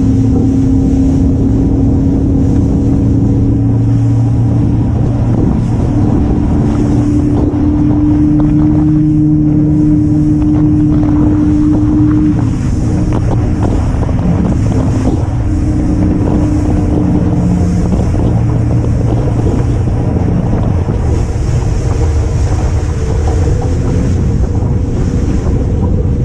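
Fishing boat's engine running steadily under way, with water rushing along the hull and wind on the microphone. The engine note eases slightly about halfway through.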